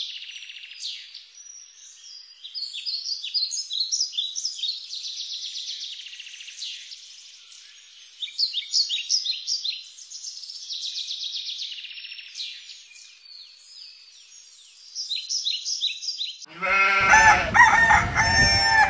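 Songbirds chirping and singing, a dense run of short high notes. Near the end this gives way suddenly to louder farmyard animal calls, with a rooster crowing among them.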